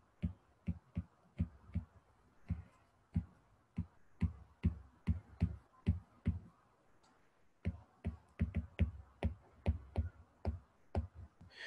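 Stylus tapping and clicking on a drawing tablet during handwriting: short, irregular clicks, about two or three a second, with a short pause about seven seconds in.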